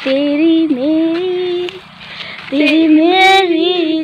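A young woman singing a Mising song solo, with no instruments. She holds two long, slightly wavering notes, with a short break of about half a second between them.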